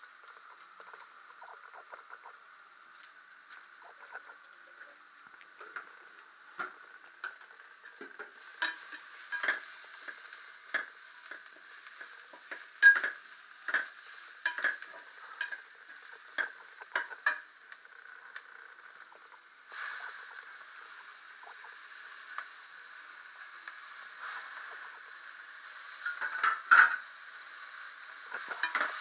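Sliced onions sizzling as they fry in oil in a metal pot, with a slotted spatula stirring and scraping against the pot in a run of clicks and knocks. The sizzle gets louder about two-thirds of the way in.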